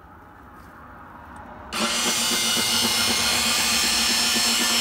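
Electric linear actuator of a boat surf tab running under power and swinging the tab through its travel as a first test of the new mounting. It starts just under two seconds in: a steady, loud motor whine.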